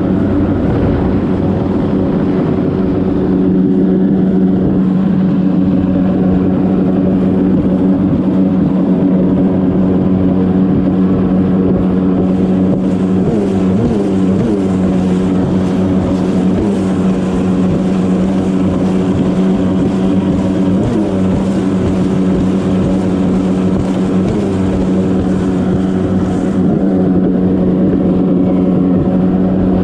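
Yamaha WaveRunner personal watercraft engine running steadily under way, with water spray hissing around the hull. The engine note wavers briefly several times partway through as the craft runs over chop, and the spray hiss grows louder for a stretch in the middle.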